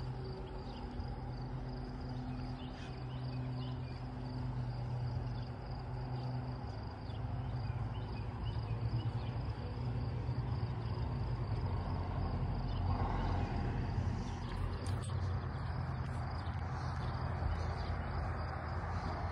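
Insects chirping steadily in a high, pulsing chorus over a low steady hum. From about 13 seconds in, a car's tyre and engine noise grows louder as it approaches.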